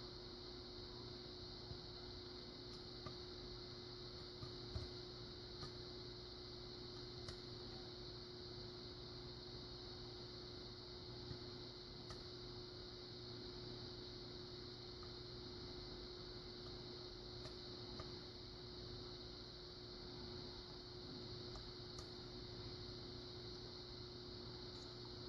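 Faint, scattered ticks and clicks at irregular intervals from a lock pick working the inner pins of a pin-in-pin lock, over a steady low hum.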